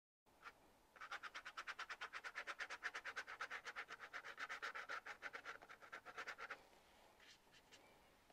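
Paintbrush scrubbing quickly back and forth on paper, about eight short scratchy strokes a second, stopping about two-thirds of the way through, then a few scattered strokes.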